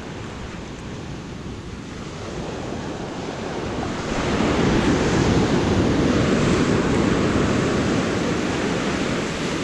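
Small ocean surf breaking and washing up the beach, swelling about four seconds in as a wave rushes up the shore, with wind on the microphone.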